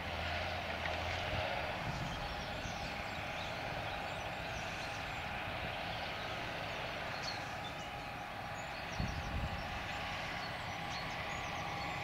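Distant John Deere tractor's diesel engine running steadily while it pulls a fertiliser spreader across the field. A short low thump comes about nine seconds in.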